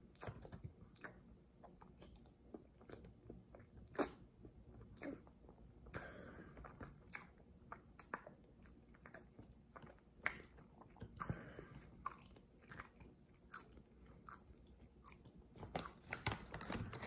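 A person chewing a whole peeled hard-boiled egg with a full mouth: faint, irregular wet clicks and smacks, the loudest about four seconds in.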